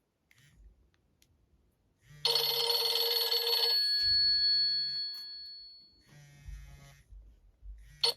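A Nokia E65 ringtone playing through the phone's speaker: one loud burst of high ringing tones about two seconds in, lasting about a second and a half, with a few tones trailing off over the next two seconds. A short click near the end.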